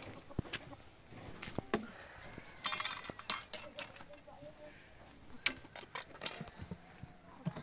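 Metal clinks and knocks of a ladle against a metal cooking pot on a wood-fired stove, with a short ringing clatter about three seconds in and a few single sharp knocks later.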